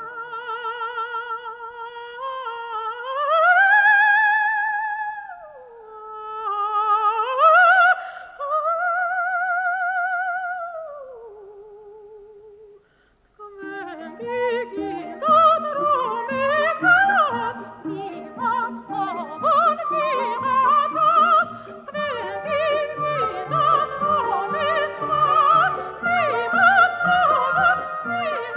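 Operatic soprano voice sings long held, high notes with a wide vibrato, rising and falling, with little else under it. After a short pause about halfway, the orchestra and voices come in with busier, faster-moving music.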